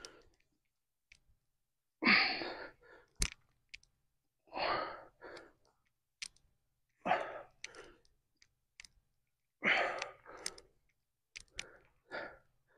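A man's forceful exhales while doing dumbbell squats, five of them, one about every two and a half seconds with each rep. A single sharp click comes just after the first.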